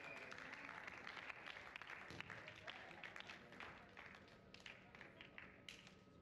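Faint scattered clapping and distant voices from spectators, thinning out toward the end.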